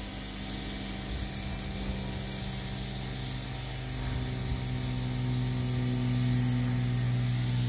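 Air-fed paint spray gun spraying paint onto a stool: a steady hiss, with a steady low hum underneath.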